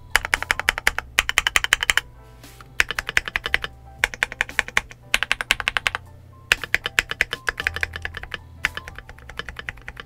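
Typing on a KiiBoom Phantom68 mechanical keyboard: quick runs of keystrokes broken by short pauses, the keys sounding a little poppy. The stabilized keys sound like they could use a little tuning.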